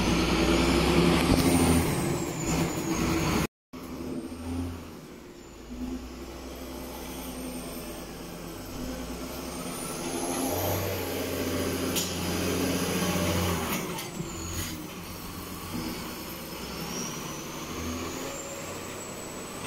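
John Deere tractor's diesel engine running as it drives a buckrake over the grass in a silage pit, loudest at first while close, then quieter and rising and falling with the load. The sound cuts out briefly about three and a half seconds in.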